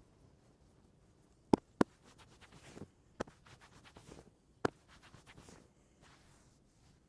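Hand-on-head massage sounds: four sharp smacks of the hands, two in quick succession about a second and a half in, then one a little after three seconds and one about four and a half seconds in, with soft rubbing of hands over hair and skin between them.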